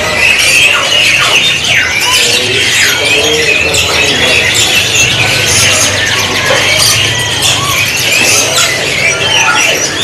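Many caged domestic canaries singing at once: a dense, loud tangle of overlapping trills, whistles and chirps.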